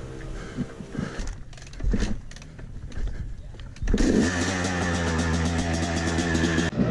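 Yamaha YZ250 two-stroke dirt bike started after a few thuds: about four seconds in the engine fires and runs at a steady idle.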